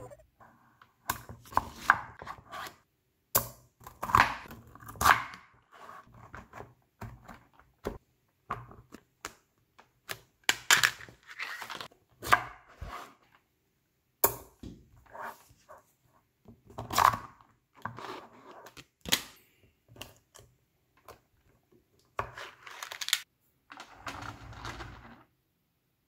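Small neodymium magnet balls clicking and rattling as blocks of them are snapped together and pressed into place by hand. The clacks come in irregular clusters with short pauses between them.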